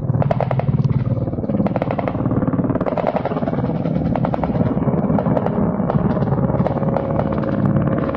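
Military helicopter flying low and close, its rotors making a fast, steady chop, with sharp cracks scattered through.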